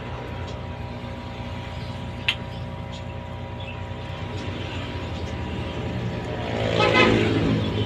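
A steady machine hum with several constant tones, with a single sharp click a little over two seconds in. Near the end a louder motor sound swells and falls in pitch as it passes, like a vehicle going by.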